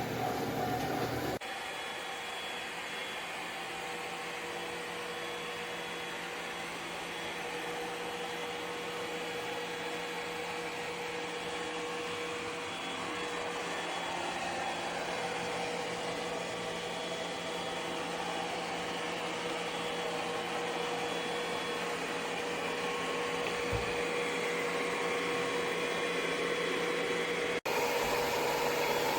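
ECOVACS DEEBOT X9 PRO robot vacuum running with a steady whirring hum and a thin steady whine. The sound changes abruptly about a second in and again near the end.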